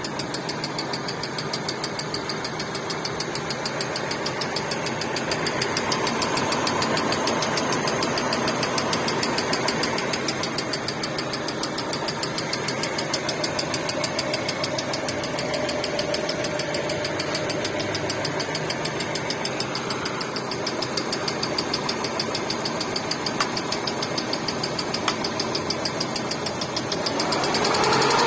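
Hyundai Getz engine running with a ringing knock: a fast, even metallic tapping in time with the engine. The engine gets louder near the end.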